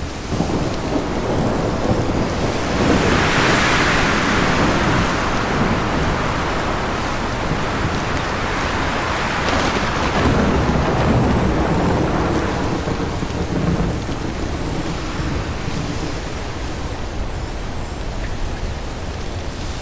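Strong wind blowing on a mountaintop, a steady rush that swells into louder gusts a few seconds in and again around the middle.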